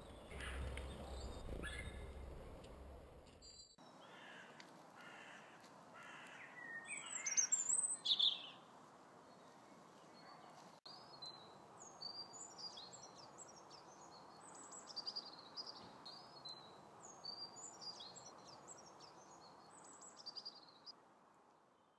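Garden birds calling: a few harsh repeated calls, then a loud burst of high calls about eight seconds in, followed by many short, high chirping phrases from small songbirds that fade out at the end.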